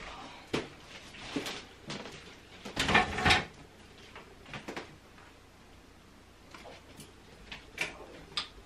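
Scattered light knocks and clicks with a louder clatter about three seconds in, like doors or things being handled in a small room.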